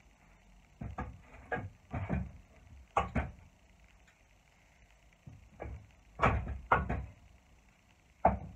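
Hammer knocking on an old wooden loft joist to work nails out of it: a series of sharp, irregular blows in groups of two or three, with a short pause about four seconds in and the loudest strikes near the end.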